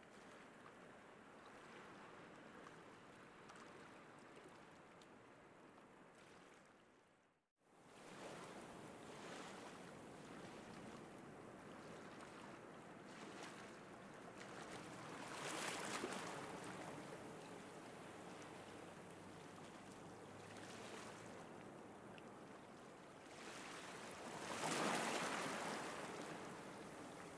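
Baltic Sea surf: a soft, steady wash of waves, with two louder waves swelling and falling away, one about halfway through and one near the end. The sound cuts out for a moment at about seven seconds.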